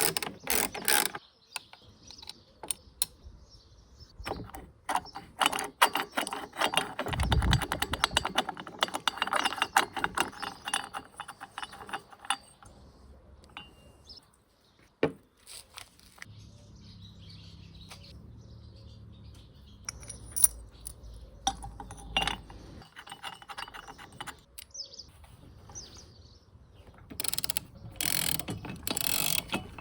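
Clicking and ratcheting of metal parts being worked by hand on a small mower engine's recoil starter, with a dense run of rapid clicks about a third of the way in and louder clattering near the end.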